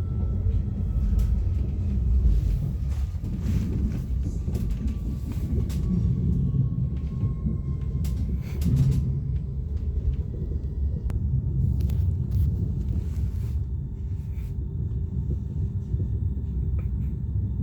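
Passenger train running at speed, heard from inside the carriage as a steady low rumble with a few light clicks. A faint whine slowly falls in pitch over the first half.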